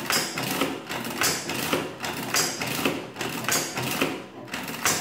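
Burroughs Class 1 adding machine's operating handle pulled over and over, about once a second, each pull a mechanical clatter of the machine's levers and works. With the repeat key latched, each pull adds the same number again, working a multiplication by repeated addition.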